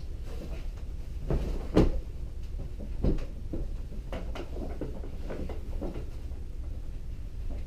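A fabric-covered foam cushion set down on a wooden table with two dull thumps, about two and three seconds in, then hands patting and smoothing the cover with soft taps and rustles.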